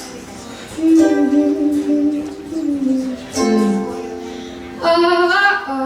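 Female voice singing held, wordless-sounding phrases over a plucked-string accompaniment: a live acoustic song.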